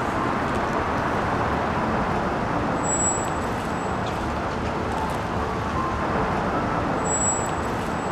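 Steady city street traffic noise: the even rush of passing cars and road rumble.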